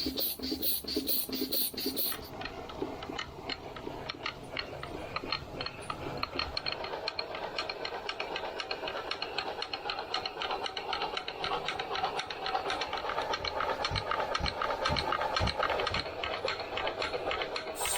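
Small steam machinery running on low-pressure steam: a fast, regular clatter of mechanical strokes with a light hiss of steam. The character of the strokes changes about two seconds in, then runs steadily.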